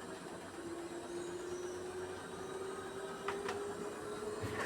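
Beko WMY81283LMB2 washing machine running its service-mode spin test: a steady motor hum with a tone that rises slowly in pitch as the drum spins. Two short clicks come about three and a half seconds in.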